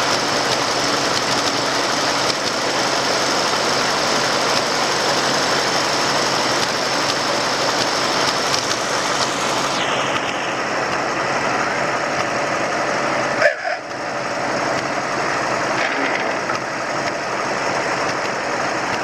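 Ferguson TEA20 tractor engines, four-cylinder petrol units, running steadily while pulling a plough. The sound turns duller about halfway through, and there is a brief dropout about three-quarters of the way in.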